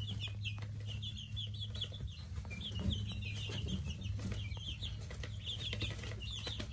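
Young chicks and ducklings, about three weeks old, peeping in a brooder: clusters of many short, high cheeps over a steady low hum.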